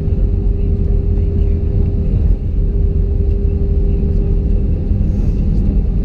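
Cabin noise of an Airbus A320-200 rolling along the runway just after landing: a loud, steady low rumble of engines and wheels, with a steady hum running through it.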